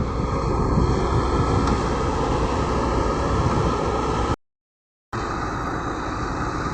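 Heavy diesel construction machinery running steadily: a low engine drone under a broad hiss. The sound cuts out completely for under a second about four and a half seconds in, then carries on.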